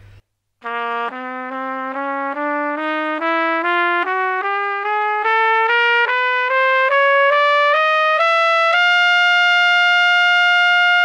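Plastic pTrumpet playing a slow rising run of short notes in small steps, about twenty of them, from low to high. It settles on a long held high note near the end.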